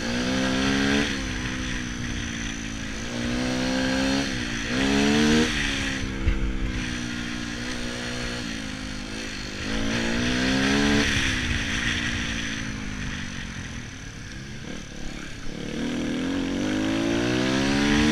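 Dirt bike engine being ridden, its pitch climbing under throttle and dropping back again and again, as when accelerating and shifting gears.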